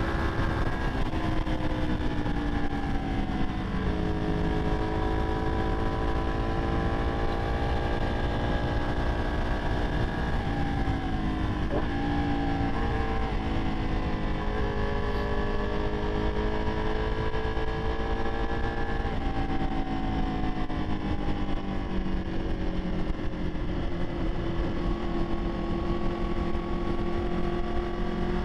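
Ducati 959 Panigale's Superquadro V-twin heard from the rider's seat at road speed, its pitch rising and falling with the throttle, dipping about 4 and 12 seconds in. Heavy wind rush runs under it.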